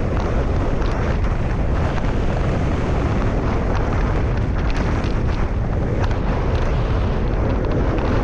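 Wind buffeting a bike-mounted GoPro's microphone during a descent at about 30 mph: a loud, steady low rumble of rushing air, with faint ticks of tyre and road noise.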